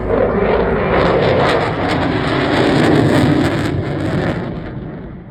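Eurofighter Typhoon's two Eurojet EJ200 turbofans running loud as the jet flies its display, with a crackling edge to the noise in the middle; the sound fades away over the last second or so.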